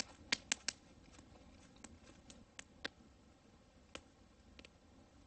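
Wood campfire crackling faintly: irregular sharp pops, a quick run of three in the first second and single pops scattered after, over a low hiss.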